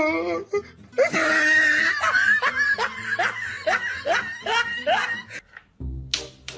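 A person laughing in a long run of short, rapid bursts that stops about five seconds in, after a brief wavering, whiny voice at the start.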